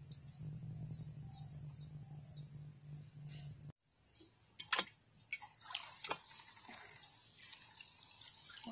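A bamboo lift net being raised out of shallow floodwater: water drips, splashes and starts streaming off the mesh in scattered clicks and crackles that build toward the end. Before this, a faint steady low hum stops abruptly a little under four seconds in.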